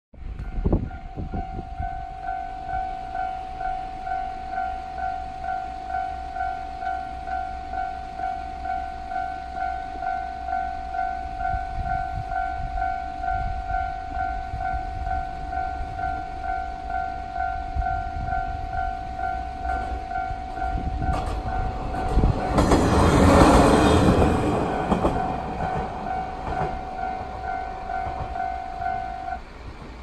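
Japanese railway level-crossing alarm ringing its standard electronic bell, a steady repeating ding-ding that stops just before the end. About 22 to 25 seconds in, a train passes over the crossing, a swelling rush of wheel and rail noise louder than the bell.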